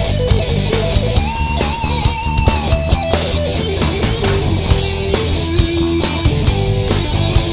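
Live heavy rock music: an electric guitar plays a melody of single held notes over drums.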